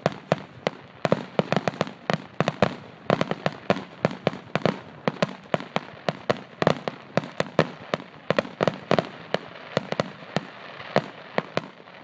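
Fireworks finale: rapid, irregular volleys of aerial shell bursts, several sharp bangs a second without a break.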